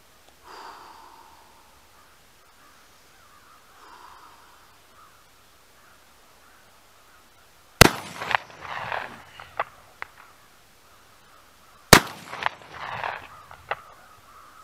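Two shots from a 12-gauge Remington Versa Max semi-automatic shotgun firing 2¾-inch slugs, about four seconds apart, each a sharp crack followed by a rolling echo and a few lighter clicks.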